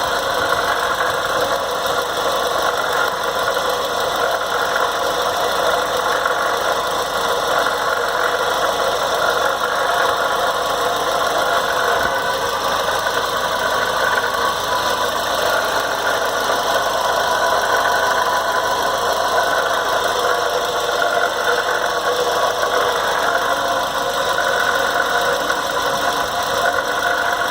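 Toyota MR2 Mk3's 1.8-litre four-cylinder engine running steadily at idle. Under it, when listened to closely, is a strange noise that sounds like a TARDIS taking off; its cause is unknown.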